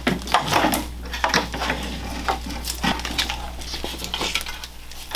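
Wiring harness and loose metal parts being handled in a garage: irregular light clinks, clatter and rustling over a steady low hum.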